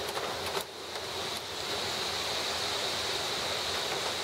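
Storm wind blowing through trees and across the microphone: a steady rushing noise as a thunderstorm moves in, with a couple of faint clicks in the first second and a half.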